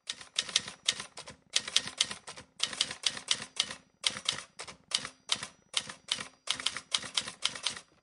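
Typewriter keys clacking in quick runs of strikes with short pauses between them, a typing sound effect.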